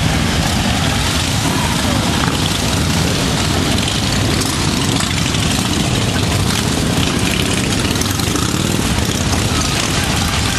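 Many cruiser motorcycles riding slowly past together, their engines running loud and steady in one dense mix, with voices in the crowd.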